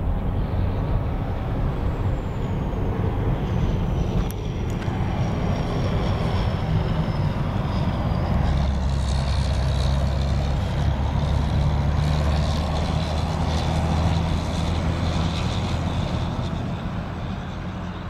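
Airport fire truck's heavy diesel engine running with a steady low hum, which swells and gets louder about halfway through. A thin, high, falling whine and a single click come in the first few seconds.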